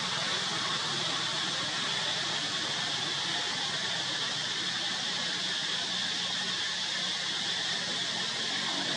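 A steady, unbroken high-pitched hiss, even throughout, with no calls or cries standing out.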